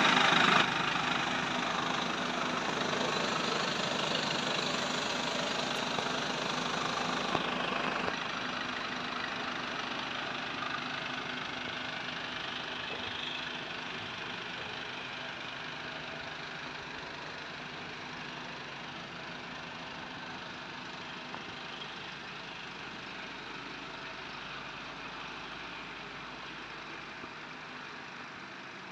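Mercedes Sprinter 516 CDI's four-cylinder diesel engine idling steadily. It is loudest at first, drops suddenly about eight seconds in, then fades slowly.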